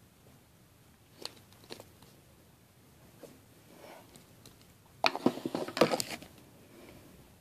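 Handling noise on the recording device: hands brushing and knocking against it close to the microphone. A couple of light clicks come first, then about five seconds in a loud second-long burst of knocking, rattling and scraping.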